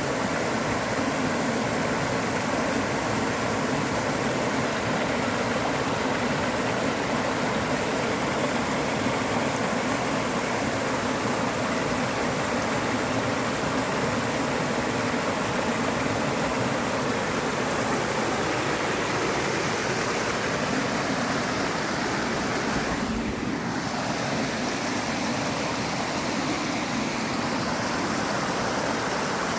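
A stream flowing steadily: an even rush of running water.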